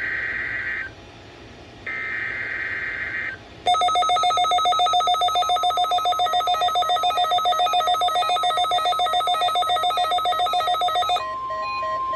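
NOAA Weather Radio SAME header data bursts: two raspy, roughly one-second screeches of digital tones with a short gap between them. About three and a half seconds in, a weather radio receiver's electronic alert starts beeping rapidly in several tones at once, about six pulses a second. Near the end it gives way to the steady 1050 Hz NOAA warning alarm tone.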